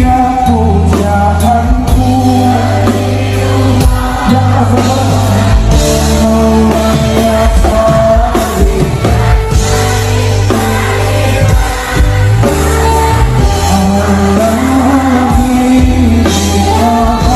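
Background music: a song with singing over a steady bass and drum beat.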